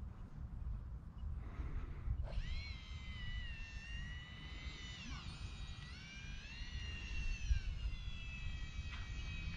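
Electric ducted fan of an RC A-10 jet whining, starting about two seconds in, its pitch stepping up and down with the throttle. Low wind rumble on the microphone underneath.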